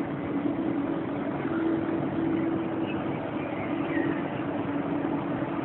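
KLIA Transit electric train moving slowly alongside the platform, giving a steady low hum with no clicks or knocks.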